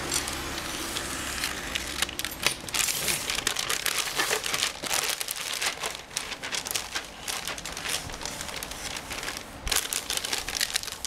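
Plastic packaging crinkling and rustling, with many small clicks and taps, as the bagged parts of an automatic-transmission seal kit are handled.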